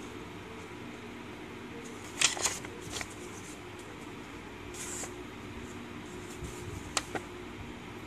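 A paper instruction leaflet being handled and turned over, giving short rustles and crinkles, the loudest about two seconds in and smaller ones near three, five and seven seconds. A faint steady low hum runs underneath.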